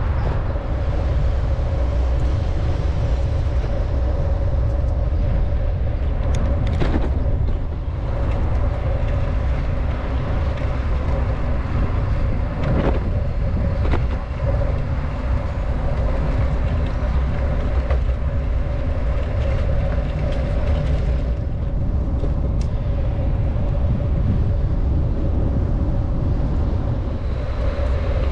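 Wind and road noise from a bicycle ride picked up by a GoPro action camera: a steady low rumble with a constant hum, broken by a few brief knocks.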